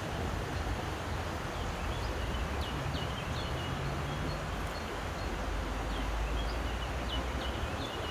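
Steady rush of flowing river water with a low rumble underneath, and a small bird chirping a few times around the middle and again near the end.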